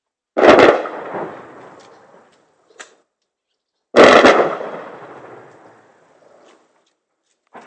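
Two loud blasts of combat fire, about three and a half seconds apart, each followed by a rolling echo that dies away over about two seconds.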